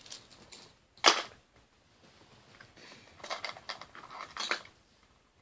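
Handling of fishing lures and tackle close to the microphone: a sharp knock about a second in, then a run of small clicks and rustles a couple of seconds later.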